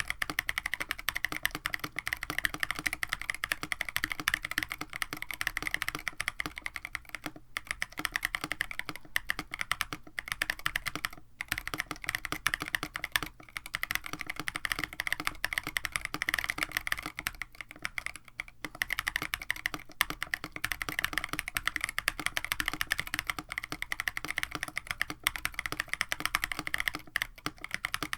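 Continuous fast typing on a KBD67 Lite mechanical keyboard with an FR4 plate, JWK Penyu switches lubed with Krytox 205g0, and GMK Darling clone keycaps. A dense clatter of keystrokes is broken by a few brief pauses.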